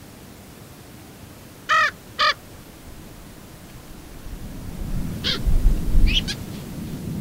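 Two short harsh caws from a crow-family bird, about half a second apart, a little under two seconds in. From about four seconds a deep rumble builds and grows loud, with a few shorter, thinner calls over it.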